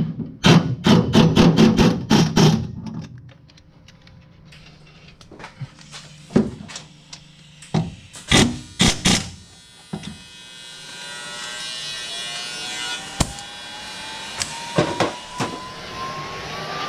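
Air ratchet run in short bursts, driving bellhousing bolts home: a quick run of rattling strikes in the first couple of seconds, and a few more between about six and nine seconds in. In the second half a steady hiss and a slowly rising whine come in.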